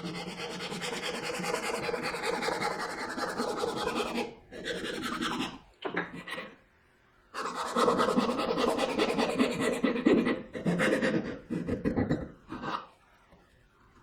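Hand saw cutting through walnut, sawing the miter of a dovetail joint: fast rasping strokes in runs of a few seconds, broken by short pauses.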